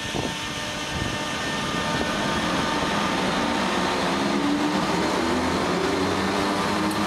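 NS 1700-class electric locomotive pulling away with a train of double-deck coaches: its chopper-controlled traction motors give a whine of several tones that slowly rise in pitch as it gathers speed, over the rumble of the train.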